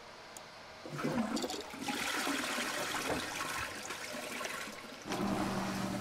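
Upflush toilet flushing: water rushes into the bowl about a second in. About five seconds in the macerator grinder pump starts with a steady low hum to pump the waste away.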